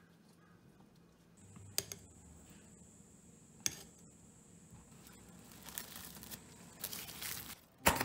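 A metal spoon stirring thin batter in a ceramic bowl, clinking against the bowl twice. Then, near the end, plastic cling wrap crinkles in short bursts as it is stretched over the bowl.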